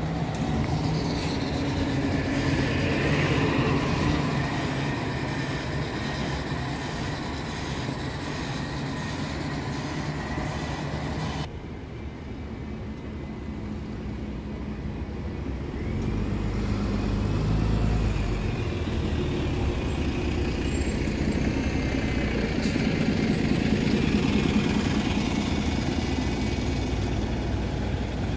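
Bus engines running at close range as buses idle and move off. The sound breaks off abruptly about a third of the way in, then the engine noise grows louder twice as double-deck buses pull away.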